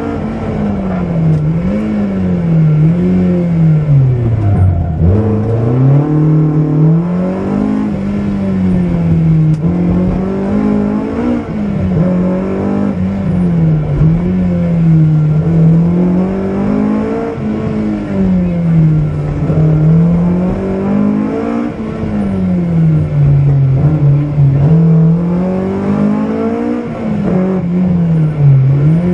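BMW M3 rally car's engine heard from inside the cockpit while driven hard on a stage, revving up and falling back again and again as it is pushed through the gears and corners. Its pitch dips deepest about five seconds in.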